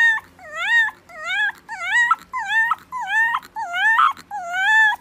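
Puppy howling: a run of short, high cries, about two a second, each dipping and then rising in pitch.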